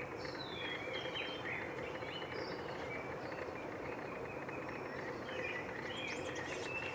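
Small birds chirping and twittering, with short high calls that slide up and down. The calls are busiest in the first couple of seconds and again near the end, over a steady background hum.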